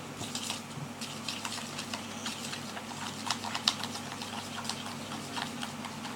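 Homemade slime being stirred and kneaded, a quick irregular run of small sticky clicks and crackles, one sharper click near the middle.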